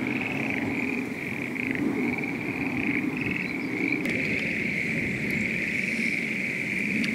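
Frogs in a flooded rice paddy calling in a dense, unbroken chorus, one high-pitched layer over a lower one.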